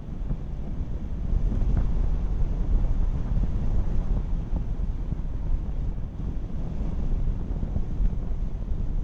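Wind buffeting the microphone of a camera on a moving car, an even low rumbling noise with the car's road noise under it.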